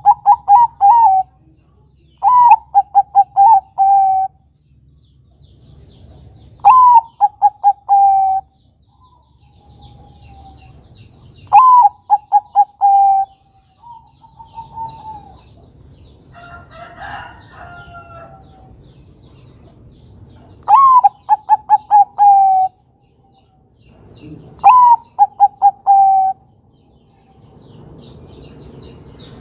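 Zebra dove (perkutut) cooing over and over. Each phrase is a rising opening note followed by a quick run of short, even coos, six phrases in all a few seconds apart. Faint chirps of small birds sit behind it, and a rougher call breaks in about halfway.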